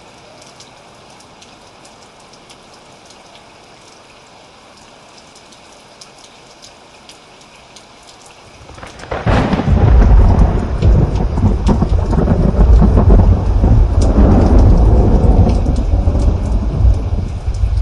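Thunderstorm: steady rain with scattered drips, then about halfway through a loud thunder roll that breaks suddenly and rumbles deep for several seconds before starting to fade near the end.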